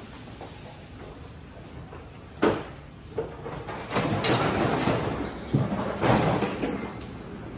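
Two sharp knocks, then a few seconds of rustling and scuffling with a couple of bumps.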